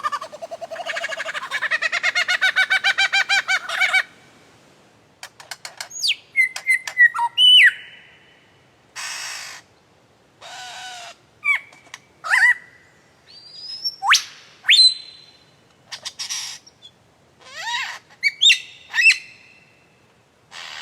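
Saracura wood-rails calling loudly. A rapid run of pulsed notes lasts about four seconds, followed by scattered sharp rising and falling whistles and harsh squawks.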